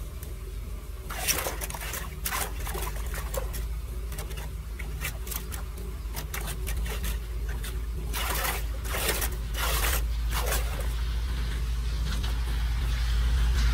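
Floodwater splashing and sloshing in irregular bursts as leaves and twigs are pulled by hand and a small rake from a clogged street drain, over a steady low rumble that grows louder near the end.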